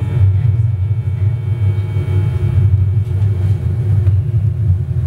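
Live noise-music improvisation from synthesizers, electric guitars and electronics: a loud, dense low rumble that wavers continuously, with faint sustained tones held above it.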